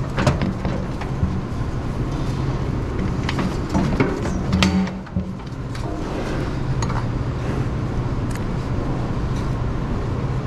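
A steady low mechanical hum, with a few short scrapes and clicks as a hoof knife pares away loose, separated horn from a cow's abscessed hoof.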